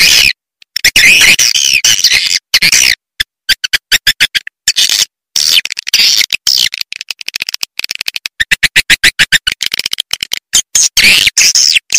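Edited recording of edible-nest swiftlet calls played as a lure sound: bursts of shrill twittering chirps that cut off abruptly into silence, with fast runs of short chirps in the middle and again near the end.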